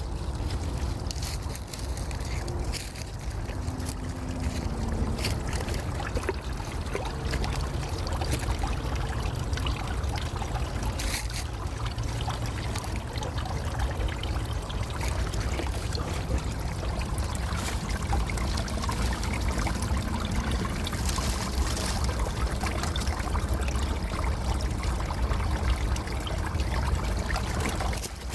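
Wind rumbling steadily on the microphone, with scattered light clicks and rustles.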